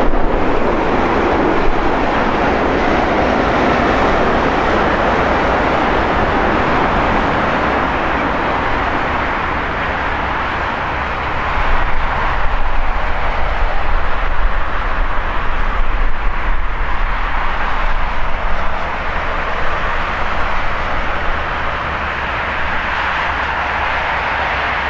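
Four Rolls-Royce Trent 500 turbofans of an Airbus A340-600 airliner as it touches down and rolls out along the runway: a steady rushing noise with a faint high whine that rises slightly over the first several seconds. The noise dips about ten seconds in, then swells again unevenly as the aircraft decelerates.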